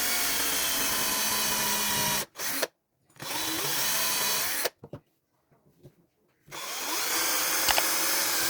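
Electric hand drill running in three runs, its pitch wavering. It stops about two seconds in, runs again briefly a second later, then starts again about two-thirds of the way through, with a few small clicks in the pause.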